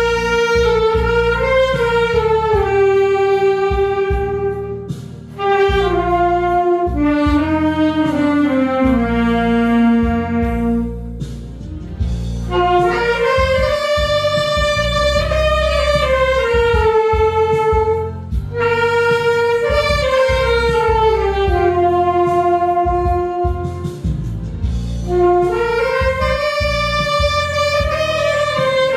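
Saxophone playing a slow, lyrical melody of long held notes that slide between pitches, over a backing accompaniment, pausing briefly between phrases.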